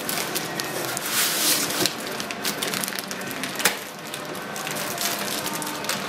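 Cardboard box and foam packing rustling and scraping as hands lift a boxed fume extractor out, with many small clicks, busiest from about one to two seconds in, and one sharp knock near the middle.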